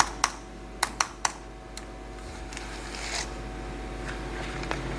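Laptop keys being pressed: a quick run of about six sharp clicks in the first two seconds, over a faint steady hum.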